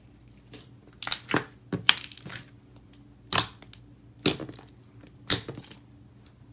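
Thick clear slime with metallic pigment and hollow glitter squeezed and pressed by fingers, giving sharp crackling bubble pops. There is a quick cluster of pops about a second in, then single pops roughly once a second.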